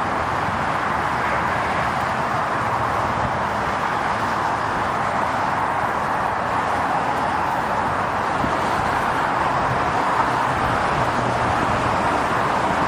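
Steady outdoor city street noise: a constant, even wash of traffic and urban background sound with no distinct events standing out.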